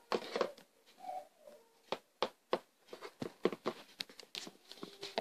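Light, irregular taps and clicks of plastic My Little Pony figures being hopped across a tabletop by hand.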